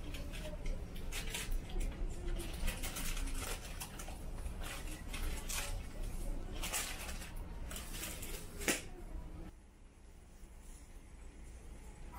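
Supermarket background noise: a run of light clicks, clatters and rustles, the loudest a sharp click about three quarters of the way through. The sound then drops to a quieter, steady low background.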